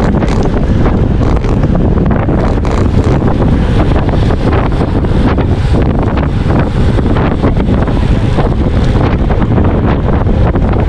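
Steady wind buffeting on the microphone of a handlebar-mounted camera on a road bike riding at race speed.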